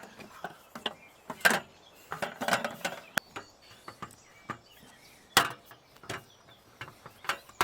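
Parts of a camp kitchen shelf being handled and fitted together: irregular clicks, knocks and clatter, with sharper knocks about a second and a half in and again about five seconds in.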